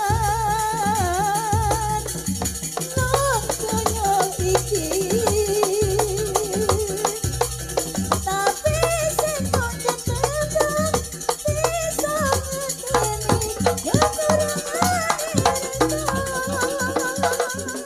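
Janger Banyuwangi ensemble music played live: a wavering melodic lead with heavy vibrato over a steady beat of low drum strokes and busy rattling percussion.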